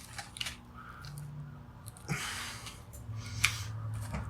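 Hand cutters clicking and crunching on a USB cable as it is squeezed and worked, a few sharp clicks spread out with a short rustle of the cord about two seconds in.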